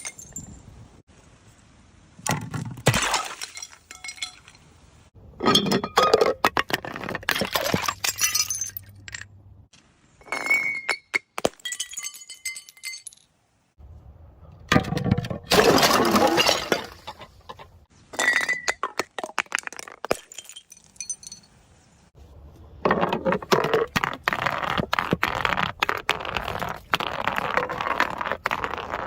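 Glass bottles breaking one after another, each break a cluster of sharp smashes followed by clinking, ringing shards. A longer unbroken stretch of breaking glass runs through the last several seconds.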